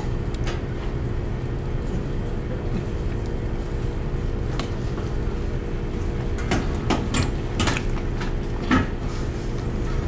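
Steady low drone of a ship's onboard machinery and ventilation, with a few steady hums in it. Over it come a few light clicks and knocks as a ceiling air-conditioning diffuser plate is twisted and handled, clustered from about the middle to near the end.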